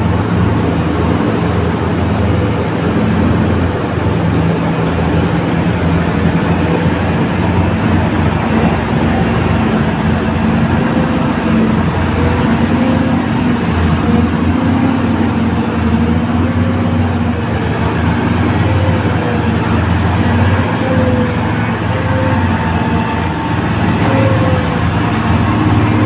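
Diesel engines of several Volvo FH heavy-haul trucks running together under heavy load, moving a multi-axle trailer at walking pace. A steady, loud drone whose pitch wavers a little as the engines work.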